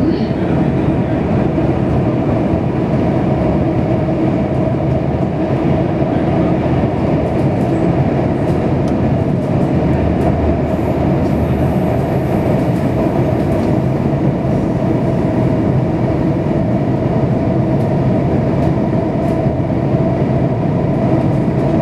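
A Singapore North East Line metro train running through a tunnel, heard from inside the car: a steady rolling rumble of wheels on rail with an even hum.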